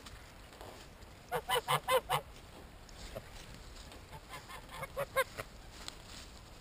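White domestic geese honking: a quick run of about five loud honks about a second and a half in, then another run of honks around five seconds in.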